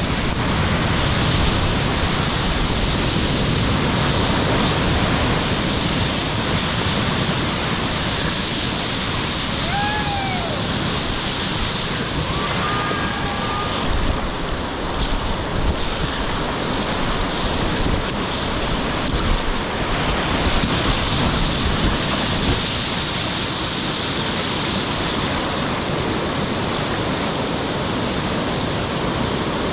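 Colorado River whitewater rushing and splashing around a kayak as it runs a rapid, a steady loud wash of water with wind buffeting the action camera's microphone.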